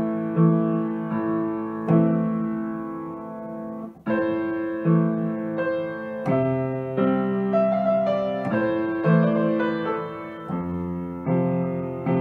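Grand piano played solo: held chords struck in a steady, unhurried pulse, with a brief break about four seconds in before the next phrase.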